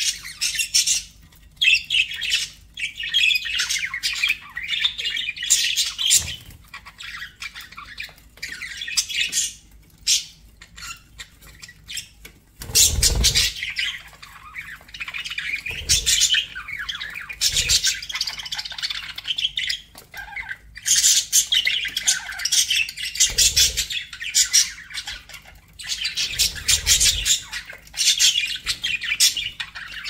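Budgerigars chirping and chattering, a busy run of quick, high, squawky calls with short pauses. A few soft low thumps come and go in the middle and later part.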